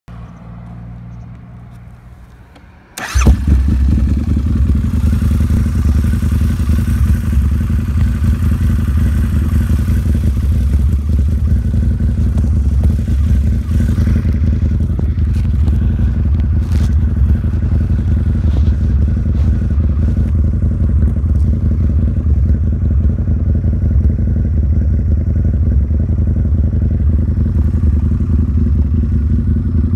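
Harley-Davidson Night Rod Special's V-twin engine starting with a sudden loud burst about three seconds in, then running steadily. Muffled, heard from a phone in a pocket.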